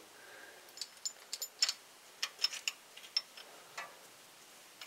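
Light metallic clicks and clinks, about a dozen scattered over a few seconds, some with a brief high ring: small steel valvetrain parts being handled and set on the rocker studs of a small-block Chevy cylinder head.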